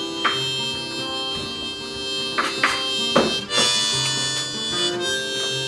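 Background music led by a harmonica, with held notes over a steady accompaniment. A few short knocks come through near the middle.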